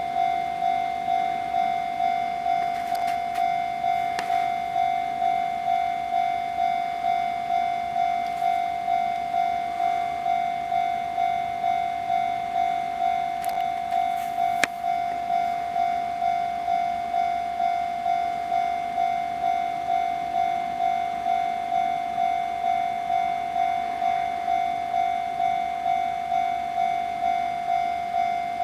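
Japanese railway level-crossing warning bell ringing a steady, even electronic ding, about three strikes every two seconds, each one fading before the next. A single sharp click sounds about halfway through.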